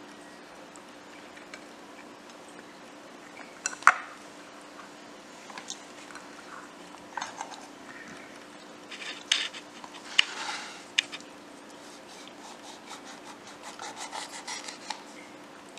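Kitchen handling noises: light rubbing, scraping and clicks as lemon slices are set on a ceramic serving platter and a wooden cutting board is handled. A sharp click about four seconds in is the loudest, with a faint steady hum underneath.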